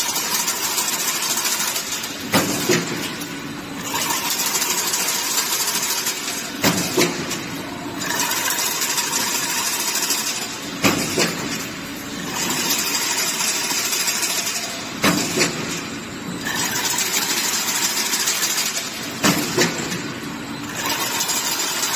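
Automatic chain link fence machine running, bending wire into zigzag spirals and weaving them into diamond mesh. Steady mechanical running noise is broken about every four seconds by a few sharp metal clanks as each weaving cycle repeats.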